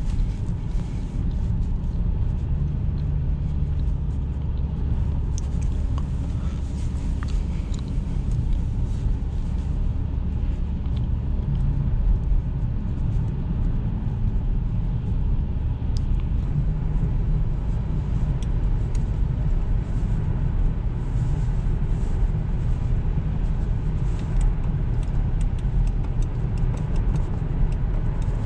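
Interior noise of a 2009 Jaguar XF 2.7-litre V6 diesel while driving: a steady low rumble of engine and road noise.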